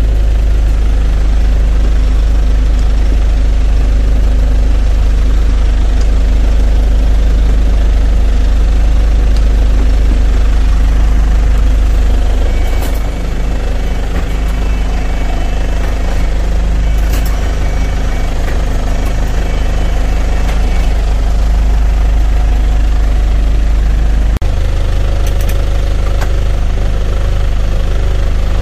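Hyundai County minibus engine idling, heard from inside the cab as a steady low rumble. About three-quarters of the way through there is a sharp click, after which the low rumble eases slightly.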